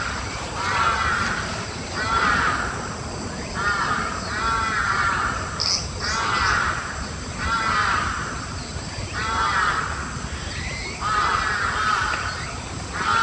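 A crow cawing over and over, one harsh call about every second.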